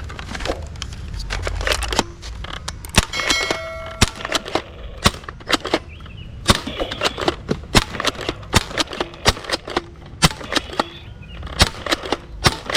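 Toy revolver firing over and over: sharp cap-gun-like cracks, irregular at about two to three a second, with a short ringing tone about three seconds in.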